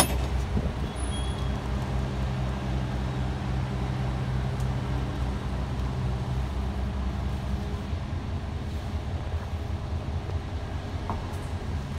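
A vehicle engine idling steadily, with a single sharp knock right at the start.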